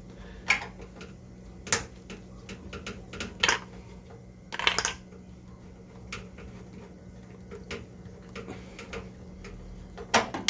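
Irregular metallic clicks, clinks and knocks of a hand tool and screws against a washer-dryer's metal and plastic panels as screws are taken out, with a short scrape about halfway through.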